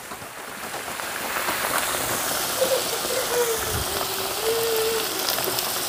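Sliced raw potatoes sizzling in a large hot pan: a steady frying hiss that builds over the first couple of seconds and then holds.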